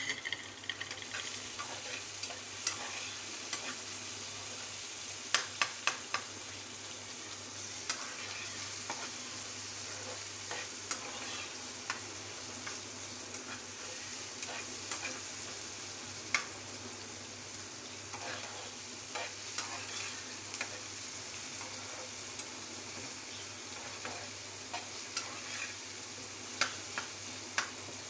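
Onion, tomato and green chilli masala sizzling in a frying pan, the base for an omelette, while a metal spatula stirs and scrapes it, knocking sharply against the pan now and then.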